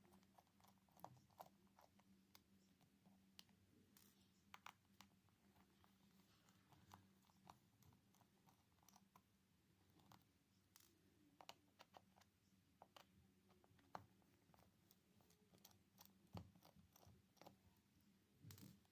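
Near silence with faint, irregular small clicks and taps, typical of small tools working screws and parts on a smartphone.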